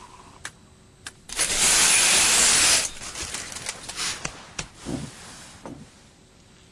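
A loud hiss lasting about a second and a half, with scattered clicks and knocks and a few shorter, quieter rushes of noise after it.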